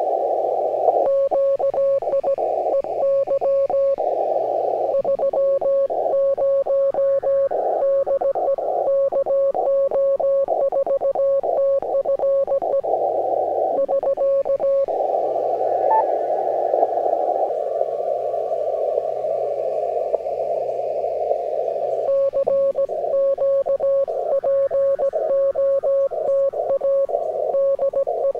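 Morse code (CW) received on the 20-metre amateur band: a single-pitched tone keyed rapidly in dots and dashes, inside the hiss of band noise through a narrow receiver filter. The keying pauses for several seconds past the middle, leaving only the hiss. Soft background music plays underneath.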